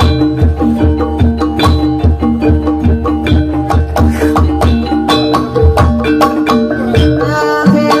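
Javanese gamelan music of the kind that accompanies ebeg: struck tuned metal and wooden keys ringing over a quick, steady drum beat. A wavering, sustained melody line comes in near the end.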